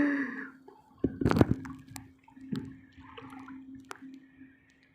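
Water sloshing and splashing, with a few sharp knocks and taps. The loudest comes a little after a second in. A faint steady hum runs underneath.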